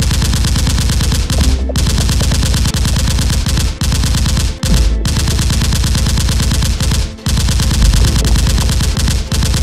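Added automatic-gunfire sound effect: rapid machine-gun fire in long bursts, broken by a few short pauses.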